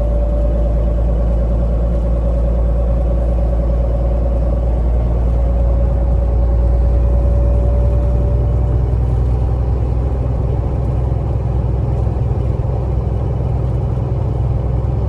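KamAZ 4308 truck driving at speed, heard from inside the cab: a steady low diesel engine and road rumble. A faint thin steady tone sits over it for about the first nine seconds.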